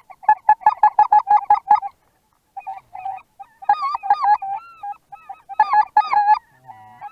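Goose honking: fast runs of loud honks, about six a second, in three bursts with short pauses between.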